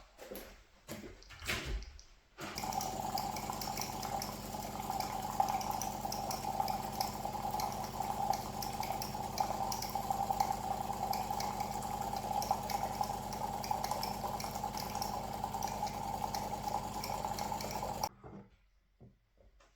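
A few light knocks, then running water starts about two seconds in and runs steadily before it stops suddenly near the end.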